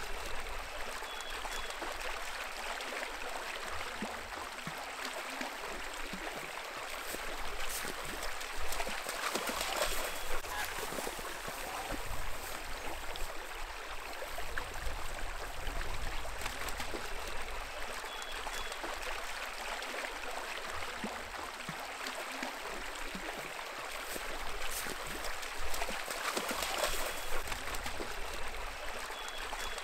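A small brook running: a steady rush of flowing water, with a few light clicks through it.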